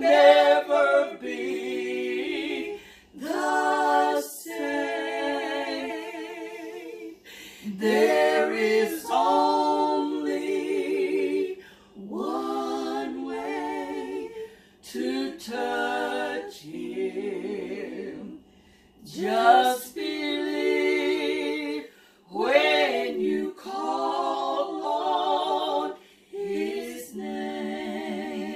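Three women singing a worship song together a cappella, with held, wavering notes in phrases of a few seconds broken by short pauses for breath.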